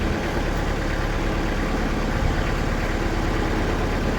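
Diesel engine of a TimberKing portable sawmill running steadily at idle, with an even low throb.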